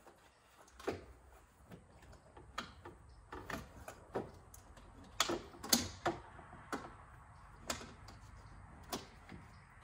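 Scattered clicks and light knocks, about ten in all and loudest a little past the middle, as a CorkSport metal intake heat shield is handled and pressed into place in a car's engine bay.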